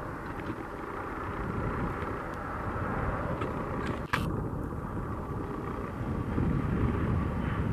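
Airbus A220-300 jet's Pratt & Whitney PW1500G geared turbofan engines making a steady roar as the airliner rolls along the runway. A single sharp click about halfway through.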